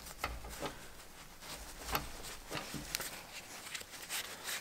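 Cloth rag rubbing and wiping a small oily metal part, the steering-head nut, clean of WD-40: soft rustling with a few light clicks of metal.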